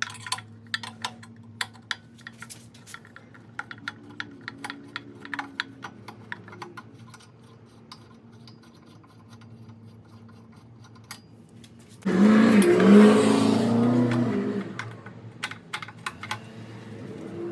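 Light clicks and taps of hands working on motorcycle turn-signal wiring, over a faint steady hum. About twelve seconds in, a sudden, much louder rushing sound with a wavering hum lasts two or three seconds, then fades.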